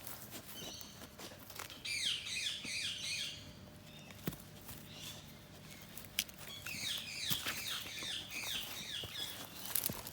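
Birds singing in two bursts of rapid, falling high chirps, the first about two seconds in and the second from about six and a half seconds, with scattered sharp clicks in between.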